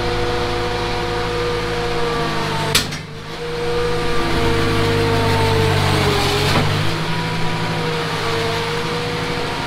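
Skid loader engine running steadily under load while dragging a truck. Its note sags briefly and recovers about six seconds in, and there is one sharp click about three seconds in.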